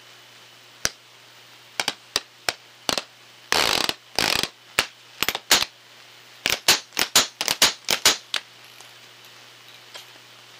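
Ultrasonic sound mixed down into the audible range: a run of about twenty sharp clicks, with two longer rasping bursts a little under four seconds in, over a steady hiss.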